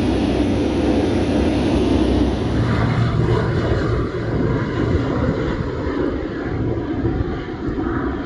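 Engines of a small twin-engine propeller plane droning steadily. About three seconds in, the sound changes to a thinner engine drone with less low end as the plane is heard from the ground, flying away.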